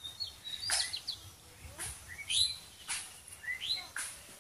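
Birds calling, a series of short rising chirps repeated every half second to a second.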